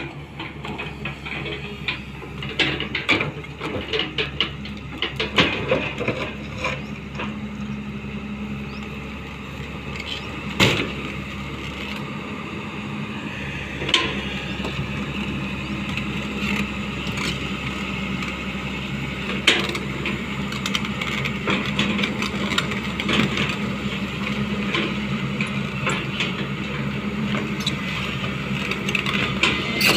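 Hyundai 245LR long-reach excavator's diesel engine running steadily while the machine digs, with scattered knocks and clanks from the working bucket and boom; a few sharp knocks stand out, the loudest about a third of the way in.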